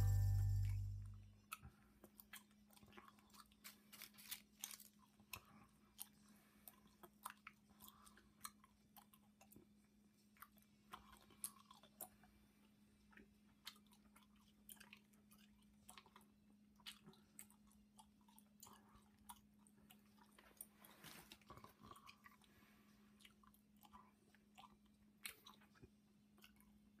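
A cat chewing and biting at a crinkly scrap of wrapper: faint, irregular crackles and clicks.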